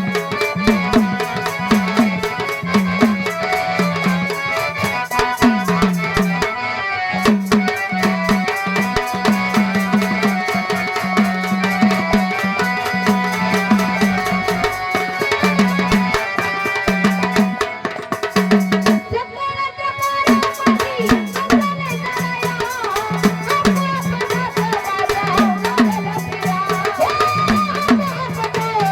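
Gondhal folk devotional music: fast hand-drum playing with a low bending drum tone, over constant jingling rattle-like percussion and a melody line. The high jingling drops out briefly about two-thirds of the way through, then resumes.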